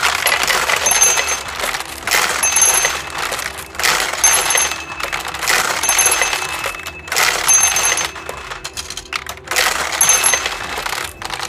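Sankyo pachinko machine paying out a jackpot: surges of steel pachinko balls clattering through the payout mechanism about every one and a half to two seconds, about six in all, with a short ringing ding at the start of most surges.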